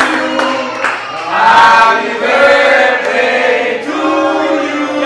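A group of voices singing together in loud, held notes.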